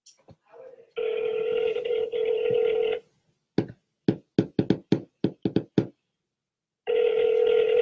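Telephone line tones for an outgoing call. A steady dial tone lasts about two seconds, then comes a quick run of about ten touch-tone dialing beeps as a number is keyed in. Near the end a second two-second tone sounds: the line ringing the called number.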